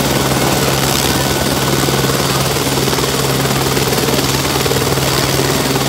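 Light single-turbine police helicopter running on the ground with its main rotor turning, giving a steady turbine hum and a fast, even blade chop.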